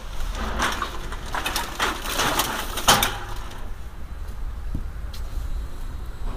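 A plastic deposit sack full of empty bottles crinkling and rustling as it is pushed into a bottle-return station's intake hatch, ending in a sharp knock about three seconds in. After that only a low steady rumble remains.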